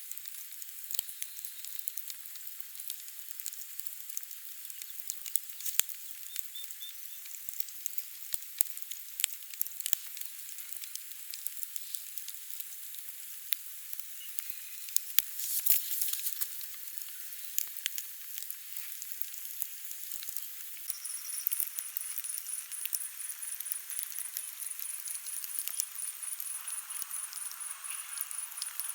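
Sizzling hiss with scattered sharp crackles and pops from a whole duck roasting over an open wood fire.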